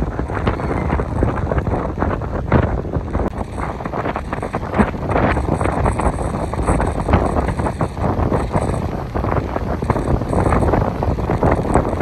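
Strong hurricane wind buffeting the microphone in gusts, a loud rumbling rush.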